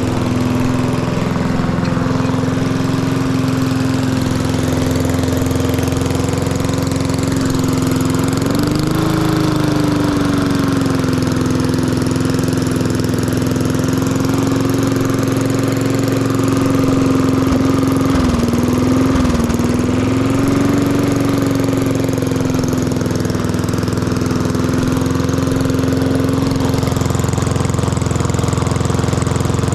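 Lawn mower engine running through a cheap aftermarket straight-through muffler, a loud steady note. Its speed rises briefly about nine seconds in, then dips and picks back up around the middle.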